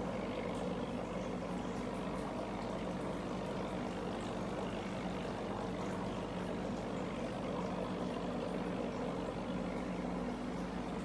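Aquarium air pump humming steadily, with the bubbling of an air-driven sponge filter in the tank.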